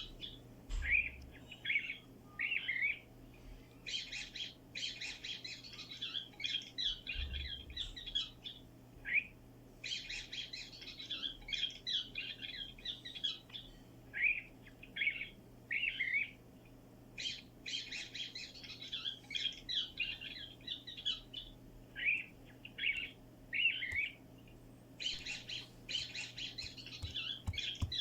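High-pitched chirps and squeaks from a small animal in quick runs, mixed with bursts of rapid fine clicking.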